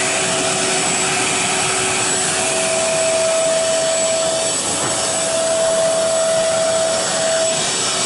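Portable carpet cleaner running steadily, its motor's rush and a steady whine coming through the hose as the nozzle sucks water up off the carpet.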